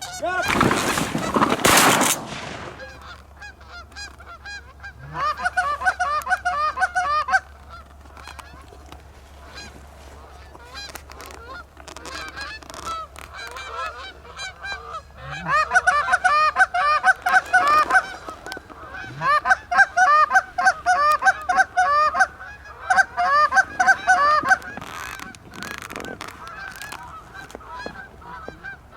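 A flock of Canada geese honking, many birds calling over one another in bouts that rise and fall. A loud burst of rushing noise opens it, lasting about two seconds.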